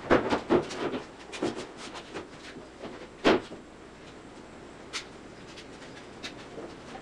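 Large plywood sheet laid down onto a wooden frame: a quick cluster of wooden knocks and thumps as it lands, then single knocks as it is shifted into place, the sharpest about three seconds in and a lighter one near the end.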